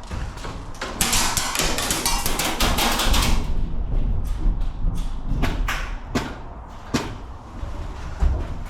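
Airsoft guns firing: a rapid burst of shots lasting about two seconds, then four separate single shots a few tenths of a second to a second apart.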